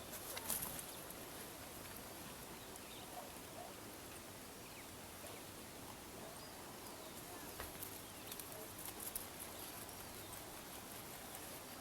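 Quiet countryside ambience: a faint steady hiss with scattered distant bird chirps and a few small clicks, the sharpest about half a second in.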